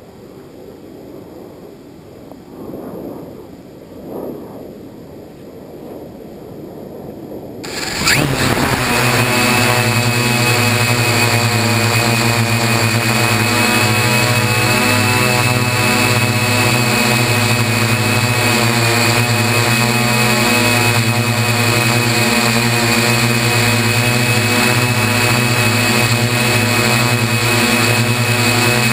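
Y6 hexacopter's six electric motors and propellers spin up abruptly about eight seconds in, after a quieter stretch of unsteady low noise, then run steadily in flight with a loud buzzing drone and a constant high whine.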